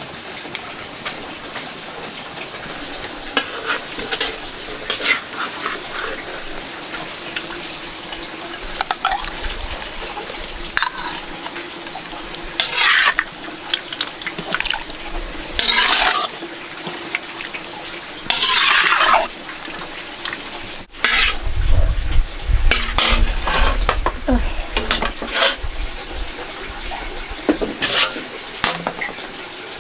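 A metal ladle clinking and scraping in an aluminium wok as broth is scooped and poured into a bowl, with several splashy pours. About two-thirds of the way through, a low rumble sets in under further clatter of cookware.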